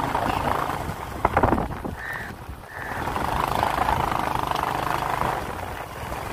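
A vehicle engine running steadily with a low drone. A few sharp knocks come about a second and a half in, and two short high tones follow just after two seconds.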